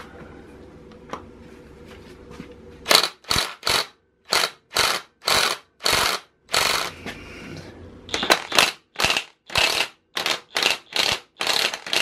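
Small DeWalt cordless impact wrench hammering in short bursts, about two a second, working a Torx flywheel bolt loose; it starts about three seconds in and stops near the end, when the first bolt is out.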